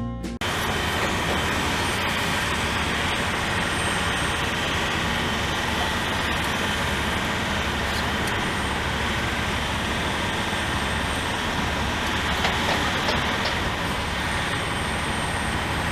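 Steady road traffic noise, an even rushing sound that starts abruptly as music cuts off about half a second in.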